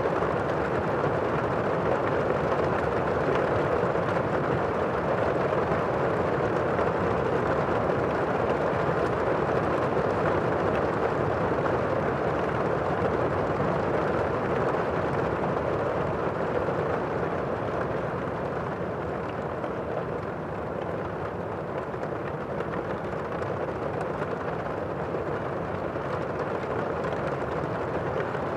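Steady, muffled rain heard as from indoors, an even rushing with no distinct drops or thunder, easing slightly in the second half.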